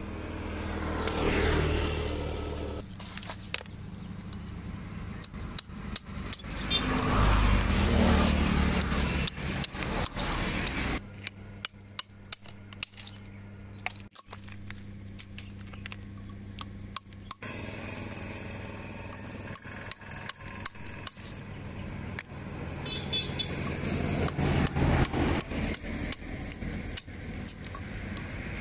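Snail shells being cracked open with a sickle on a brick: repeated short sharp knocks and crunches of breaking shell. Motor vehicles pass a few times, their engines swelling and fading under the knocking.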